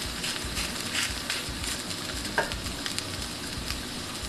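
Chopped chicken sisig sizzling on a hot sizzling plate over high heat, with steady hissing and small crackles. A short falling squeak comes about halfway through.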